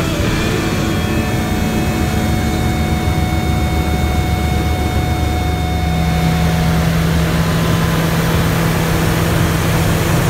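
Small single-engine propeller plane heard from inside the cockpit in flight: the piston engine and propeller run steadily under a rush of air, the engine note shifting to a different pitch about halfway through.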